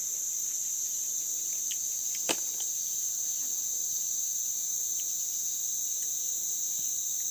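Steady high-pitched insect chorus, with one sharp click about two seconds in.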